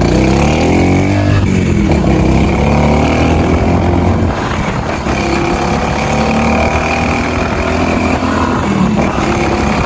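Honda Pop 110i motorcycle engine running and revving up, its pitch rising over the first second or so, then running on fairly steadily. The low rumble drops a little after about four seconds.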